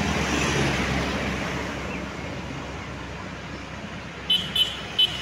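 Tour bus driving past, its engine and tyre noise fading as it moves away. Near the end come about five short, sharp, high-pitched beeps.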